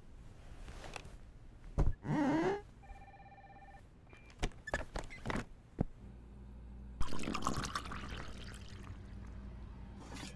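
A string of film sound-design effects: a sharp click, a brief wavering sweep, then a steady electronic beep. Several quick clicks and taps follow, then a low hum comes on about six seconds in and stays. Over the hum comes a noisy rush like liquid pouring, about a second and a half long.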